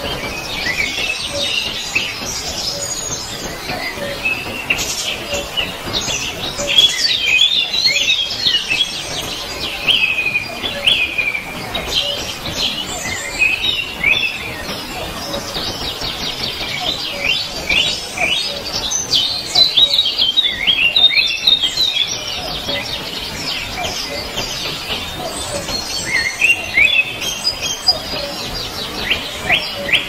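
Small songbirds chirping and twittering in quick, high-pitched, overlapping phrases, busiest in the middle stretch.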